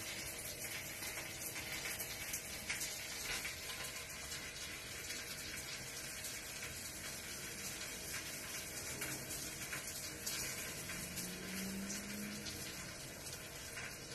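A cat lapping water from a drinking glass: a run of small, quick wet laps and clicks against a steady hiss.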